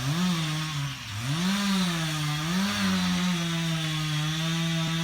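Chainsaw revving up and down a few times, then held at steady high revs for the last couple of seconds.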